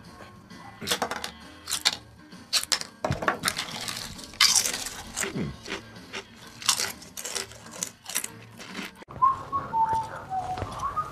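Irregular crisp crunches and scrapes of a knife paring a raw potato and of potato chips being bitten and chewed. Near the end, after a cut, a few whistled notes.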